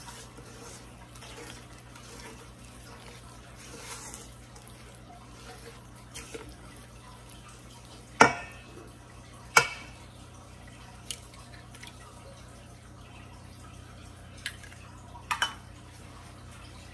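Silicone spatula stirring thick, wet chocolate batter in a stainless steel mixing bowl, with a few sharp knocks on the metal bowl; the two loudest, briefly ringing, come about eight and nine and a half seconds in.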